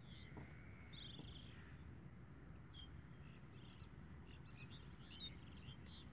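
Faint outdoor background noise with small birds chirping: a short trilled call about a second in, then scattered chirps.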